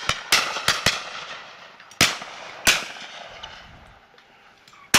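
Several shotguns firing at a covey of driven partridges. There is a quick run of about four shots in the first second, then single shots at about two and nearly three seconds, and one more near the end. Each shot has a short tail as it dies away.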